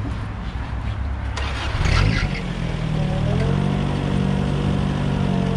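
A motor starts up about two seconds in, over a steady low rumble. Its pitch rises briefly and then settles into a steady running hum.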